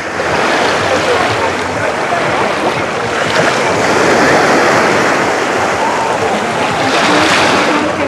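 Small sea waves washing in at the shoreline, a steady wash that swells briefly near the end, with faint voices of bathers in the background.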